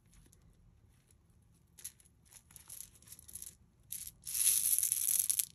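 Plastic packet of beads being handled: a few short rustles, then a longer, louder rustle about four seconds in.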